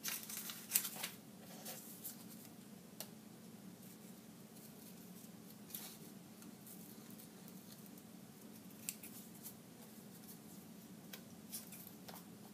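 Scissors cutting paper shapes: a quick run of snips in the first second or so, then single snips every few seconds, over a faint low hum.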